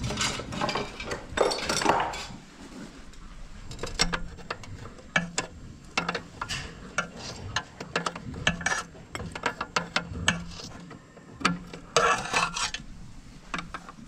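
Open-end wrench clinking and scraping against the metal fittings under a stainless steel livestock water cup as a nut is tightened: many short, sharp metallic clicks, with a longer scraping rattle near the start and another near the end.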